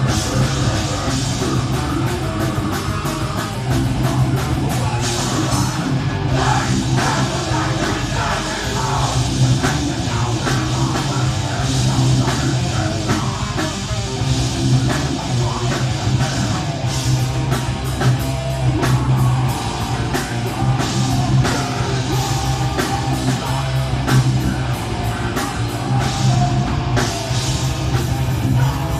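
Live rock band playing loud and without a break: pounding drum kit, heavy bass and distorted guitars, with a singer's voice at times. Heard through a mobile phone's microphone.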